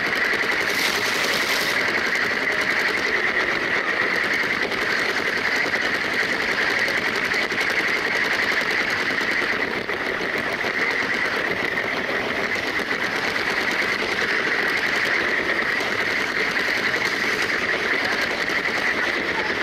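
Toy LEGO train's electric motor and gears whirring at speed, with a fast continuous clatter of plastic wheels on the track, heard from on board the train.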